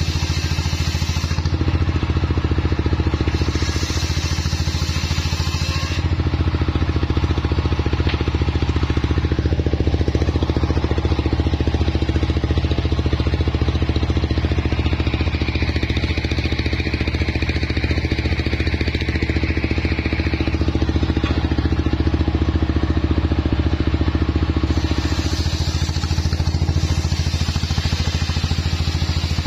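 Homemade table circular saw driven by a stationary engine, the engine running steadily throughout. The blade rasps through jowar wood near the start and again near the end, and spins with the engine in between.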